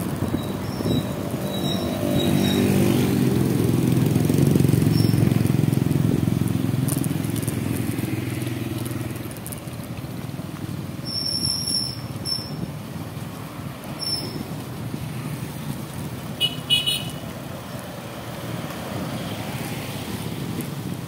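Road traffic: a motor vehicle's engine grows louder and passes in the first several seconds, then fades into steadier traffic noise. A few short high chirps come near the middle, and a short beep comes a little later.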